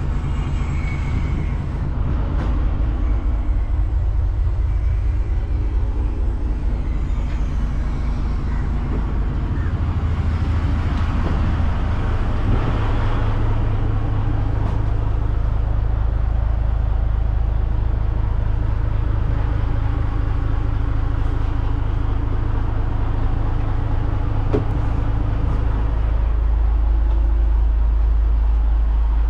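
A large engine running steadily with an even low hum, growing a little heavier partway through, with a few scattered knocks over it.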